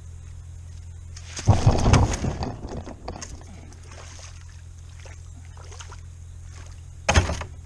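A person slipping on a slimy concrete boat ramp and going down beside a kayak: a loud clatter of thumps and scuffing about a second and a half in, dying away over the next second or so, then one short knock near the end.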